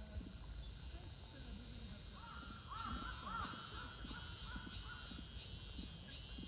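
A crow cawing in a quick run of calls from about two seconds in, over a steady high cicada drone and a pulsing cicada song that repeats about twice a second.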